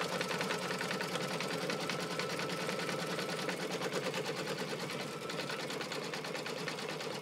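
Baby Lock embroidery machine stitching out a fill through glitter canvas vinyl: a steady, rapid run of needle strokes over an even motor hum.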